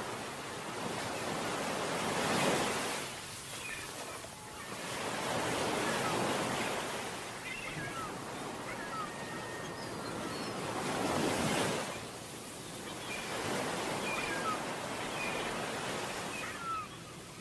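Sea waves breaking and washing up a beach in slow swells every few seconds, with faint short high chirps scattered over the surf.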